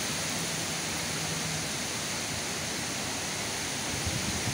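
Heavy rain pouring onto wet paving, a steady dense hiss. There are a couple of brief low thumps near the end.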